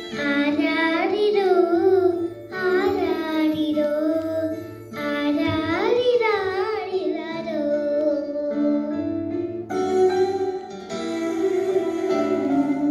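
A young girl singing into a handheld microphone, in phrases with wavering, ornamented pitch bends, over steady instrumental accompaniment with held chords and a bass line.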